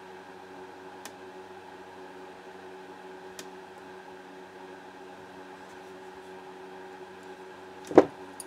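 Steady background hum with a couple of faint ticks of small metal pistol parts being handled, then one sharp knock near the end as the slide and a small hammer are handled on the wooden workbench.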